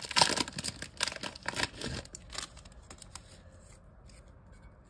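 A trading-card pack's wrapper being torn open and crinkled: a run of rustling and ripping that dies away after about two and a half seconds into faint handling.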